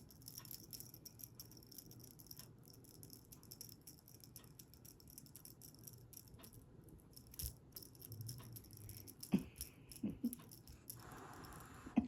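Quick, high-pitched rattling and jingling of a cat toy being played with, which stops about nine seconds in; a few short, soft sounds follow near the end.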